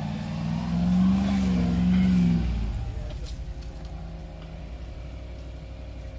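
Land Rover Lightweight's engine working under load off-road, revs raised and wavering for about two and a half seconds, then dropping back to a lower, quieter steady run.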